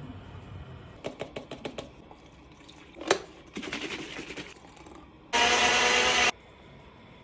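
A few light clicks and a knock, then a kitchen tap run hard for about a second, the loudest sound here.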